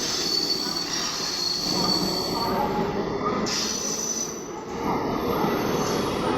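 A train running through a station, its steel wheels squealing against the rails over a steady rumble. A thin, high squeal is clearest in the first couple of seconds.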